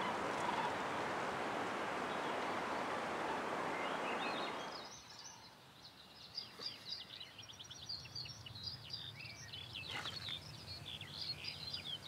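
Steady wind noise, which cuts off about five seconds in and gives way to many small birds chirping and twittering in quick, high notes. A single short click comes near the end.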